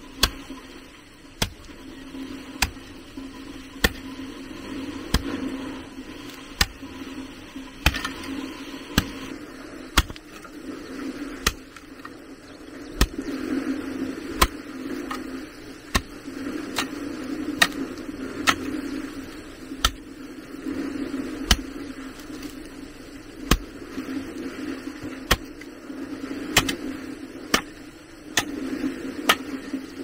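A hand tool chopping with slow, regular strokes, about one every second and a half, over a steady low hum.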